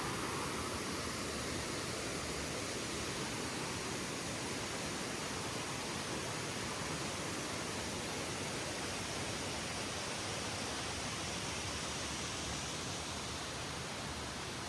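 Flowing water rushing steadily, a continuous even hiss with no breaks.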